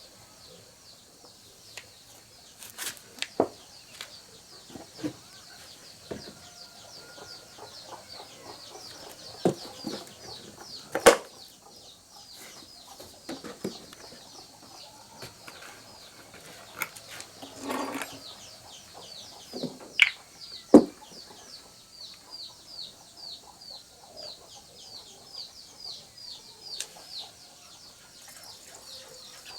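Scattered sharp knocks and clinks of metal tools and chainsaw parts being handled, the loudest about 11 and 21 seconds in, over a steady run of quick, high, falling chirps.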